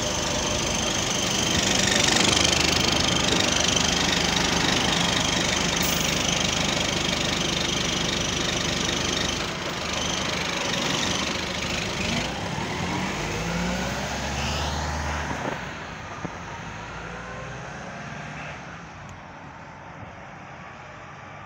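Double-decker bus engine running with a low, throbbing drone, then rising in pitch as the bus pulls away about a dozen seconds in and fading as it drives off.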